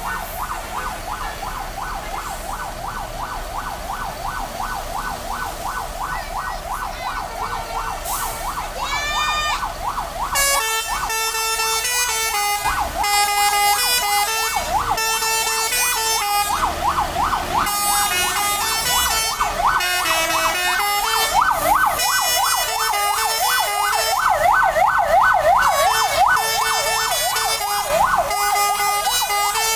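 Basuri telolet bus horn with a DAV module, sounding a fast, even siren-like warble for about the first ten seconds with a few rising glides. It then switches to a tune of stepped, held horn notes mixed with more warbling, slightly louder toward the end.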